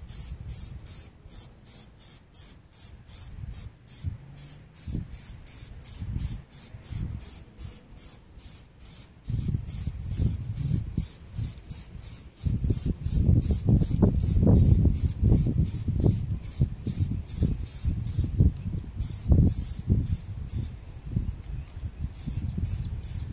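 Plasti Dip aerosol can spraying a light first coat of rubber coating in rapid short bursts of hiss, about three a second. A low rumble builds about nine seconds in and is the loudest sound through the middle.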